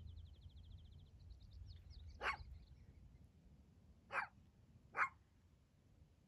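Prairie dog giving short, sharp bark calls: one about two seconds in, then two more close together near the end. A high, fast trill sounds at the start.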